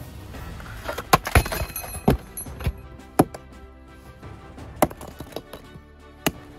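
A steel pry bar and then a sledgehammer striking volcanic rock, about seven sharp clinks and knocks spaced irregularly, the densest cluster in the first three seconds. Background music runs underneath.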